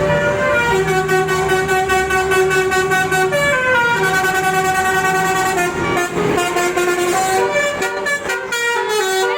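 Basuri bus telolet horn playing a tune: several horn tones sound together as a string of held notes stepping up and down in pitch, changing faster near the end.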